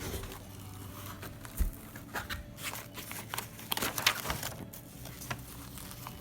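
Irregular crinkling, rustling and clicking of things being handled, with a couple of sharper knocks about one and a half and four seconds in.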